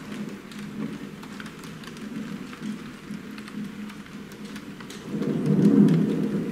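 Thunderstorm sound: steady rain patter under a low rumble of thunder, which swells louder about five seconds in.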